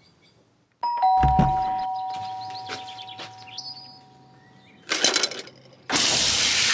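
Two-tone ding-dong doorbell chime about a second in, a higher note then a lower one, both ringing on and slowly fading. Near the end, shower water starts spraying with a loud steady hiss.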